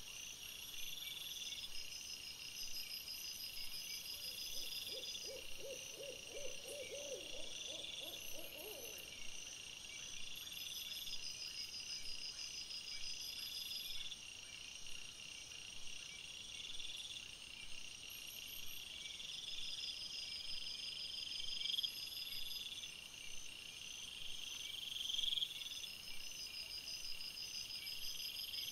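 Night insects calling: high chirp trains that repeat every couple of seconds, with a thinner pulsed buzz above them. Between about four and nine seconds in, a lower animal call of about a dozen quick pulses runs, rising slightly in pitch.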